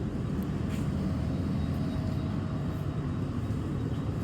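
Steady low mechanical rumble and hum inside a train coach standing at the station, with a faint steady tone above it.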